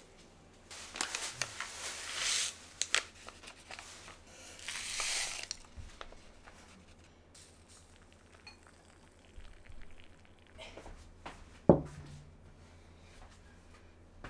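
Crinkling and rustling handling noises in several short bursts, then quiet with a few faint ticks, and one sharp knock late on.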